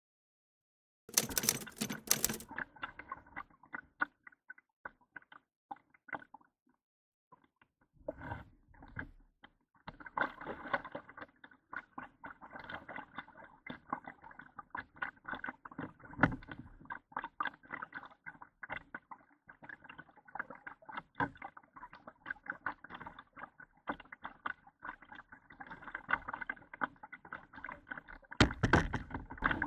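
Kayak being paddled: water pattering and dripping off the paddle and against the plastic hull, with a few louder paddle-stroke splashes. A loud crackling burst comes about a second in, after a moment of silence.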